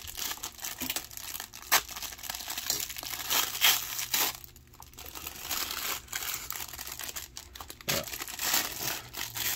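Thin packaging wrapper from an action figure's accessory crinkling as hands pull it open and handle it, in irregular bursts with sharp crackles and a short lull about halfway.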